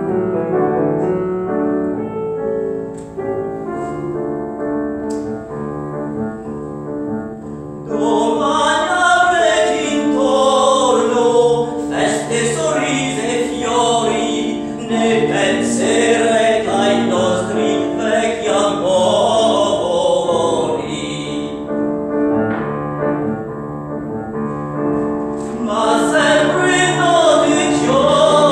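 Live piano playing on its own for the first several seconds, then a voice singing over the piano; the singing stops for a few seconds near the three-quarter mark while the piano carries on, and comes back near the end.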